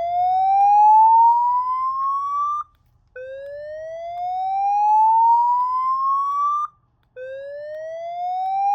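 Gentex SPKE8-15/75CW ceiling speaker sounding a fire-alarm whoop evacuation tone: a loud rising sweep of about three and a half seconds that cuts off and starts again from the bottom, repeating.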